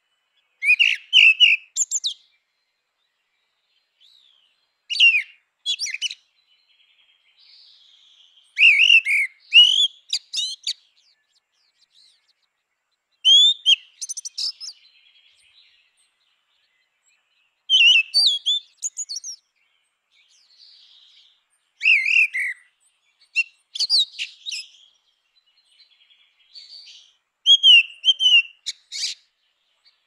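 Male grey-winged blackbird singing: a phrase every four seconds or so, each a few rich fluting whistles that run into higher, thin twittering notes, with pauses between phrases.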